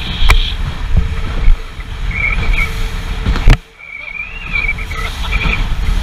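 Motorboat running fast over chop: engine, hull and spray noise under heavy wind rush on the microphone. Two sharp knocks, one just after the start and one about halfway through, the second followed by a brief dip in the noise.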